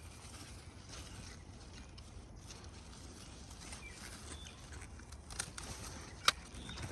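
Faint handling of a yellow crookneck squash plant as a squash is picked off it, over quiet outdoor ambience, with two short sharp clicks near the end, the second the louder.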